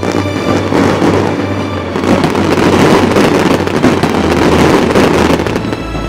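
Fireworks crackling, a dense run of rapid pops that swells about two seconds in and fades near the end, over background music with a steady bass.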